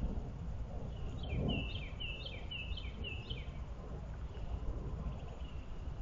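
A songbird sings one phrase repeated four times in quick succession, about two a second, with faint distant chirps around it, over a steady low rumble of outdoor background noise.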